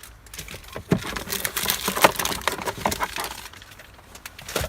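Small objects clattering and rustling as the contents of a car's glove box are taken out by hand, with a busy run of clicks and knocks and a last sharp click near the end.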